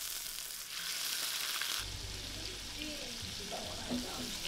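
Food sizzling in a hot pan, a steady hiss that is louder for the first two seconds, then drops back abruptly while a low hum comes in.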